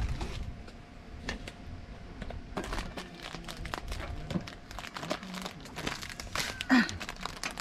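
Irregular light clicks and crinkles of plastic bottles being handled on a table.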